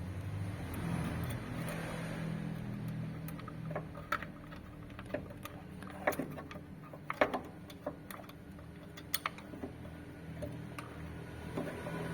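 Small metal parts clicking and tapping as a dowel pin is fitted back into the turbo wastegate actuator linkage by hand. The sharp clicks come irregularly from about four seconds in, over a low steady hum.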